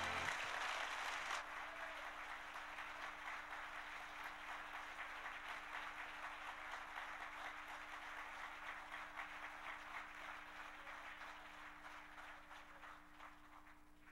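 Church congregation applauding at the end of a song, the clapping slowly dying away. The last note of the accompaniment cuts off just at the start, and a steady low hum runs underneath.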